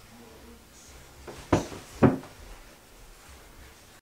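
Two short knocks about half a second apart, about one and a half seconds in, over faint small-room tone.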